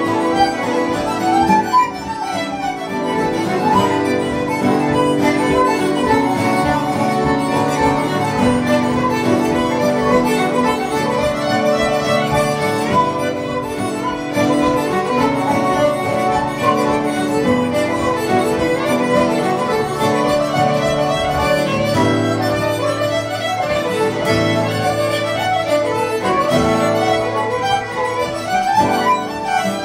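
A live session band playing reels: fiddles, flute and harmonica carry the tune over acoustic guitar and keyboard accompaniment, at a steady, unbroken pace.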